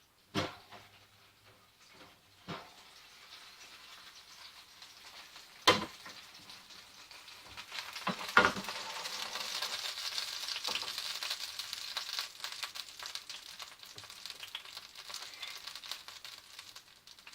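Oven-hot, plum-glazed chicken thighs sizzling in their rendered grease: a steady crackling hiss that starts about halfway through and slowly eases off. Before it come a few sharp knocks of the dish being handled, the loudest two about six and eight seconds in.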